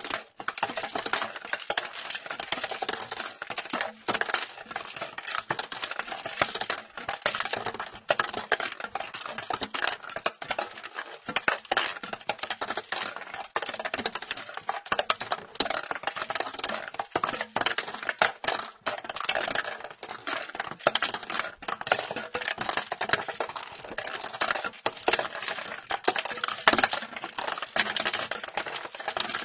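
Small ball rattling and rolling inside a plastic box that is being rotated: a dense, unbroken run of light plastic clicks and clatters.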